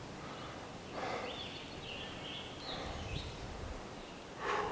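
A hiker's heavy breathing on a steep climb: a loud exhale about a second in and another near the end. Between them a bird calls faintly with short, rising and falling whistled notes.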